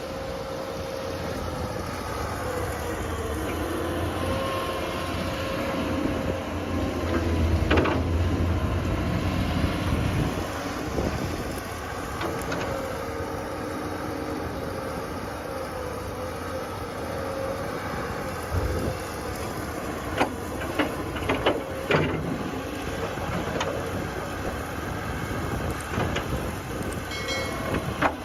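Heavy machinery running steadily with a low rumble and a held whine, with a few sharp metallic knocks about two-thirds of the way through.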